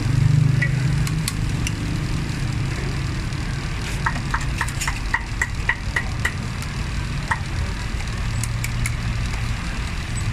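Steady low hum of a running engine or street traffic, with a run of about nine short, light clicks, roughly four a second, around the middle.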